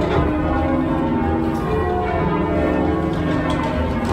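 Ring of eight church bells being change-rung, heard from the ringing chamber beneath them: a steady, continuous run of overlapping bell strikes. The bells have newly designed clappers, fitted so they ring a little brighter.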